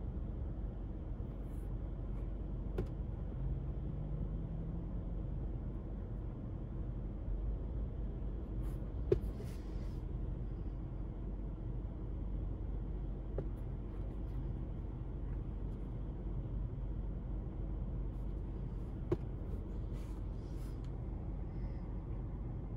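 Steady low hum of a car cabin, with a few sharp clicks and taps from handling the sneakers.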